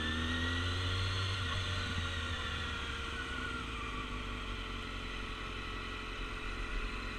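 Motorcycle engine running at low speed, its note easing down about two seconds in.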